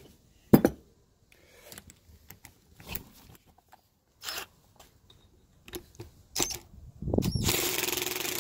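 A few scattered knocks and clicks, then, about seven seconds in, an impact gun starts running steadily on a T40 Torx bit, loosening a bolt on the Can-Am Renegade's rear differential case.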